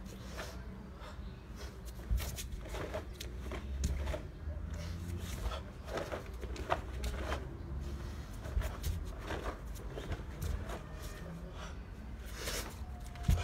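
Karate gi cloth snapping with quick punches and strikes, a dozen or more sharp irregular snaps, with bare feet shifting on a rough concrete floor, over a low, uneven rumble of wind on the microphone.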